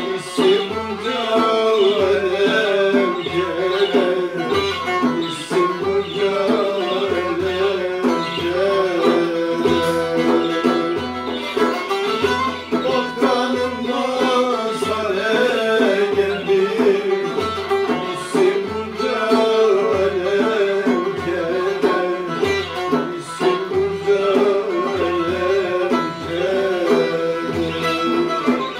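A bağlama played in a Turkish folk tune, with a frame drum keeping a steady low beat of about one and a half strokes a second and a man singing along.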